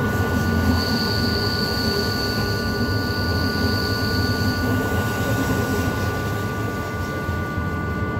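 Rhaetian Railway train running, heard from on board: a steady rumble of wheels on the track, with a high steady whine that starts about a second in and lasts about four seconds.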